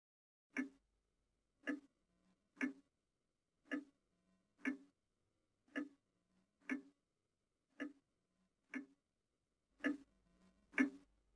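Pendulum wall clock ticking steadily, about one tick a second, the ticks getting louder near the end.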